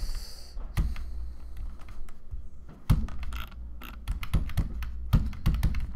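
Typing on a computer keyboard: irregular keystrokes and clicks, with a few sharper strokes among them, over a steady low hum.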